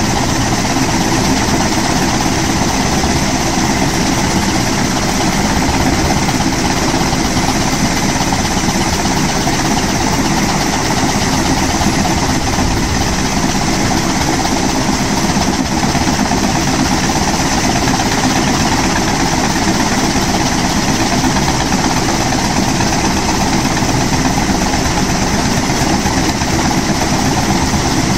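Kaman K-MAX helicopter running steadily on the ground: the turboshaft engine and intermeshing rotors turning at a constant, loud level with no change in pitch.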